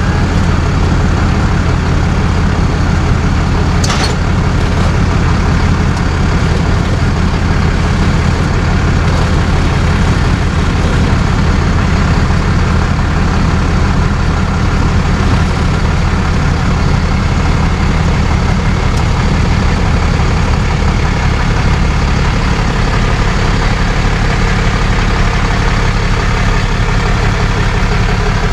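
Tow truck engine running steadily, a constant low drone, with its low note shifting slightly about three quarters of the way through. A single sharp click about four seconds in.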